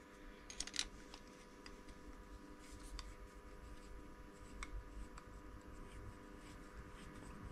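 Faint scattered light clicks and rubbing as small metal chuck parts and hand tools are handled over a cloth.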